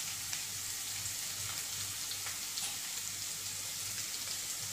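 Chopped onion, green chillies and ginger-garlic paste sizzling in hot oil in a non-stick kadhai: a steady frying hiss with a few faint pops.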